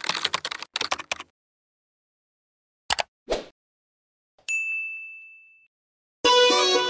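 Computer keyboard typing sound effect: a fast run of key clicks for about a second. Then comes a click and a short swish, then a single bright ding that rings out and fades over about a second. Music starts near the end.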